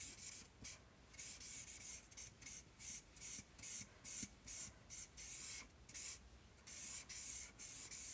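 A light Pool Party Stampin' Blends alcohol marker rubbing across cardstock in repeated colouring strokes, about two a second, each a soft hiss.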